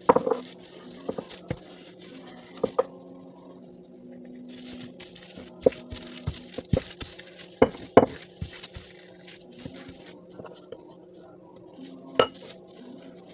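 Dough being rolled out with a wooden rolling pin and shaped by hand on a table: scattered knocks and taps of the pin against the tabletop, over a low steady hum, with a sharp ringing clink near the end.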